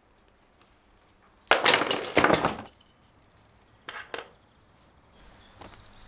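A loud clatter of small hard objects tumbling onto a wooden desk for about a second, as a balanced tower of books, pencils and small tins collapses. Two light knocks follow a couple of seconds later.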